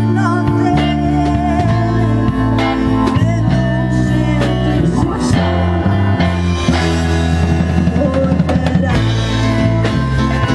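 Live band music: a woman singing over acoustic and electric guitars, keyboard, bass and drums.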